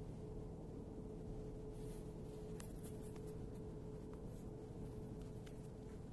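Toshiba Shorai Edge air conditioner in heating mode giving off a steady humming tone, with scattered faint ticks from about two seconds in. This is the annoying noise that the owner says appears after a few hours of heating, and that service teams have not been able to cure.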